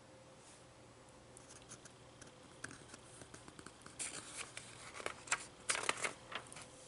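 Magazine page being handled and turned by hand: a few soft paper rustles, then louder rustling and flapping of the page from about four seconds in as it is lifted and flipped over.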